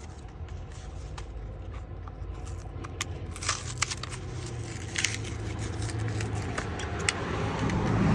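Light clicks and scrapes of an old tail-light bulb being pulled from its plastic socket in the light housing. A low rumble grows louder near the end.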